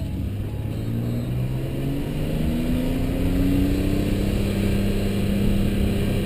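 BMW E46 M3's S54 straight-six on its standard exhaust, accelerating as the car drives into a tunnel. The engine note rises for about three and a half seconds, dips a little, then holds steady.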